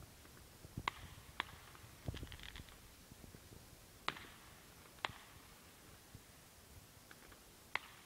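Distant fireworks going off: about five sharp, separate cracks spread through the seconds, with faint crackling and a brief low rumble about two seconds in.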